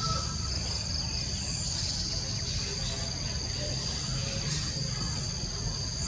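Steady, high-pitched chorus of insects in the vegetation, an unbroken shrill drone, over a low rumble.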